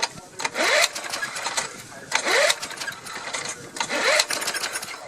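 Old Briggs & Stratton lawn mower engine being pull-started from cold: three pulls of the recoil starter rope about every second and a half to two seconds. Each pull is a short rising whirr as the engine cranks over, followed by a loud rough rattle.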